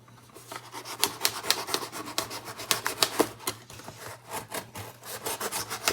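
Packaging being handled and opened by hand: quick irregular clicks and taps mixed with rubbing and scraping.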